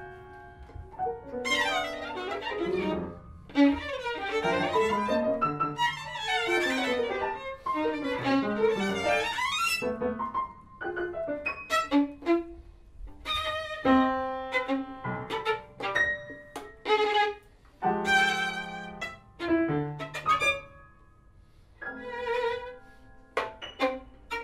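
Violin playing: sliding notes that rise and fall through the first half, then short separate phrases broken by pauses.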